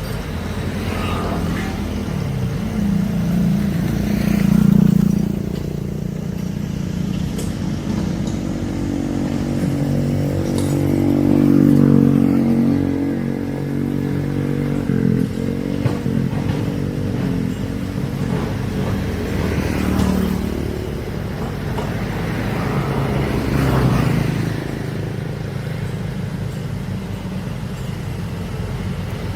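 Heavy diesel engine of an excavator running, its revs swelling and dropping back several times.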